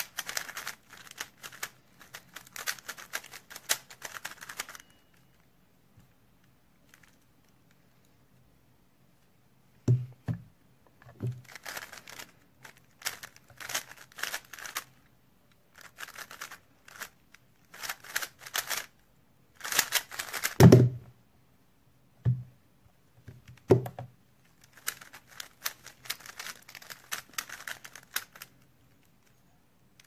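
3x3 Rubik's speedcube being turned fast: runs of rapid plastic clicking and clacking from the layer turns, lasting several seconds each with quiet pauses between, and a few dull thumps.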